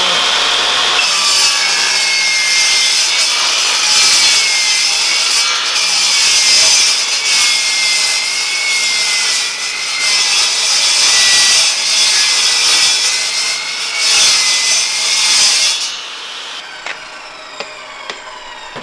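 Table saw cutting a drift-trike sleeve. The motor's whine sits lower and wavers under load through the cut. About sixteen seconds in the cutting stops and the blade winds down.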